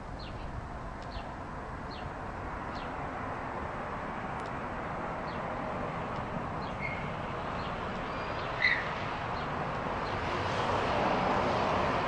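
A train approaching on the bridge overhead: a steady rumble that swells louder throughout. Short high bird chirps sound in the first few seconds, and one louder, sharp chirp comes about nine seconds in.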